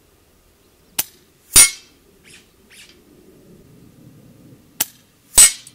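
Two air rifle shots about four seconds apart at long range, each a sharp crack followed about half a second later by a louder, longer pop. Two faint clicks come between them.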